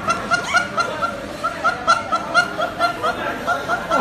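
Rapid, high-pitched snickering laughter: a run of short, even 'heh' sounds, about four a second.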